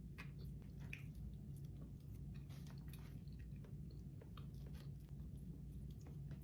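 Close-miked chewing and mouth sounds of eating fast food: soft wet smacks and small clicks scattered irregularly, over a low steady hum.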